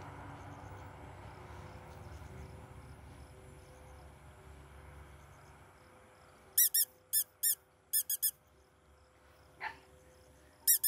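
Squeaky dog toy squeezed in a quick run of about seven short, high squeaks, starting a little past halfway, over a faint steady outdoor background.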